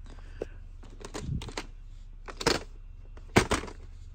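Hard plastic VHS clamshell cases clacking and knocking as they are handled and set down, a few sharp clicks with the loudest knock about three and a half seconds in.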